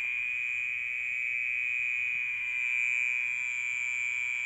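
A pet frog's steady, unbroken high-pitched trill, which the owner takes for the frog snoring in its sleep; he calls the sound shrill.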